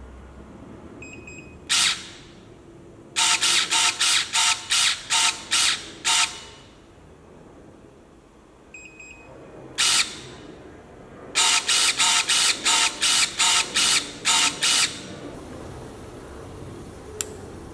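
Battery-powered electric pruning shears (Anova TPB4500), their motor snapping the blade shut: two faint short beeps, one stroke, then a quick run of about nine strokes at roughly three a second. The whole pattern comes twice. The two beeps are the signal that the trigger has been held long enough to switch the cutting opening between its two positions. A single sharp click comes near the end.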